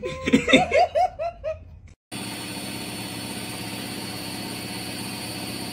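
A person laughing in a quick run of chuckles. About two seconds in it cuts to the steady hum of a front-loading washing machine running with its drum turning.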